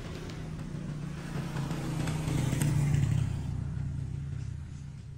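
A small car and a motorcycle driving past on a road: a low engine hum that swells to its loudest about three seconds in, then fades as they move off.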